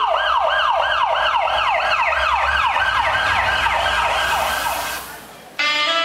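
Siren sound effect in the dance music: a rapid wail that rises quickly and falls back, about three sweeps a second, fading out about five seconds in. Just before the end the music cuts back in abruptly with guitar.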